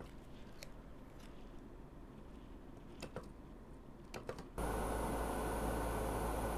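A few light handling clicks, then about four and a half seconds in a handheld gas torch is lit. It burns with a steady hiss and a low rumble, heating a copper spot-welding rod to melt solder inside it.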